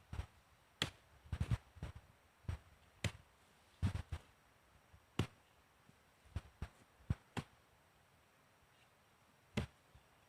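A series of irregular sharp knocks or taps, about fifteen, unevenly spaced and thinning out after the first half.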